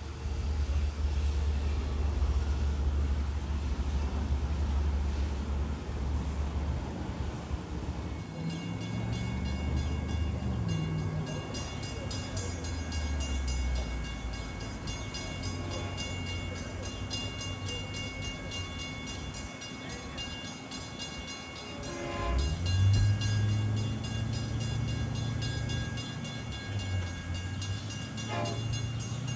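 Diesel train running at a station platform: a low engine note throughout that climbs in pitch about three-quarters of the way through, with steady high tones above it.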